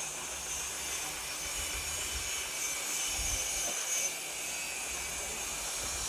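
Outdoor ambience: a steady hiss with wind rumbling and buffeting on the microphone, strongest about three seconds in.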